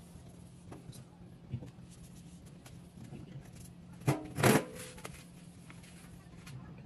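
Microfiber towel rubbing and scuffing over a vinyl hood decal, with faint scattered rubs and clicks over a steady low hum. There are two loud short sounds about four seconds in.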